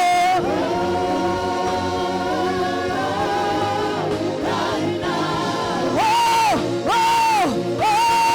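Gospel worship music: singing over sustained backing, with no clear words. In the last few seconds a voice holds three long notes with short breaks between them.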